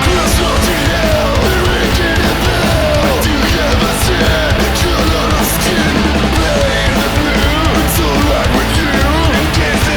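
Studio-recorded punk rock song played by a full band with electric guitar, at a loud, even level.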